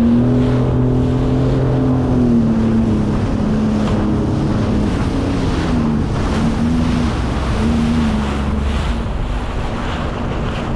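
Sea-Doo Fish Pro personal watercraft's engine running at low speed, a steady hum whose pitch dips and rises a few times in the second half as the throttle is worked, over a wash of wind and water.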